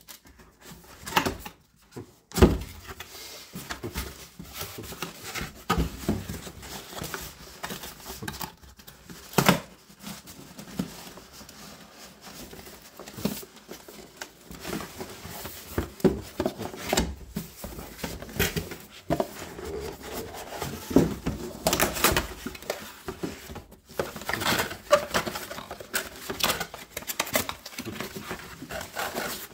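Packaging being handled while an enclosure is unwrapped: bubble wrap and plastic rustling and crinkling, with scattered sharp clicks and knocks.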